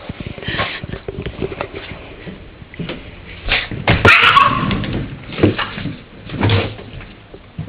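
Irregular knocks, scuffs and thumps from a small Yorkshire terrier mix dog moving about, with a louder rattling clatter about four seconds in.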